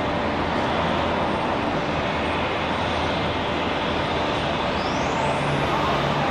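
Jet airliner engine noise, a loud, steady rushing sound. Near the end a high whine rises sharply in pitch, as of the engines spooling up.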